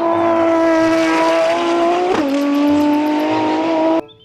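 Race car engine sound: a steady engine note that sags slightly, drops to a lower pitch with a brief blip about two seconds in, and cuts off suddenly near the end.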